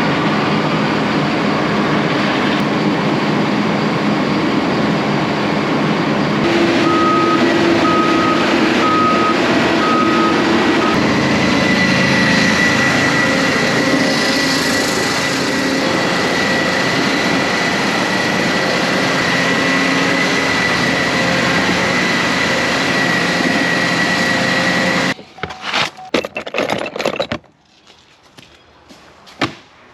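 Large vehicle engine running steadily, with an electronic warning beeper sounding in a row of short even beeps for a few seconds. The engine noise stops abruptly near the end, leaving a few knocks.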